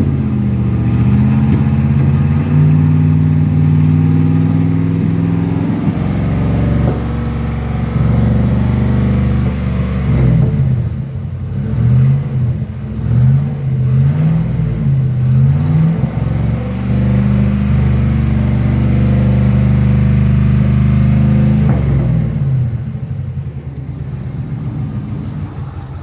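Truck engine with a persistent misfire (a multiple-cylinder misfire code) being revved hard. The revs are held steady, pushed up and down several times in quick succession around the middle, held again, then drop back and quieten near the end.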